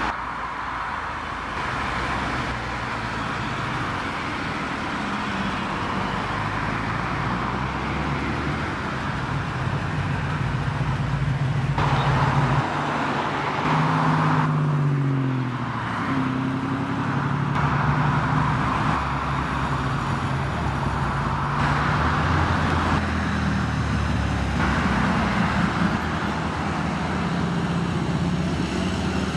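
Classic and everyday cars driving past one after another, engines pulling under road and tyre noise, with an engine note rising and falling near the middle as a car accelerates and shifts gear. The sound changes abruptly several times from one passing car to the next.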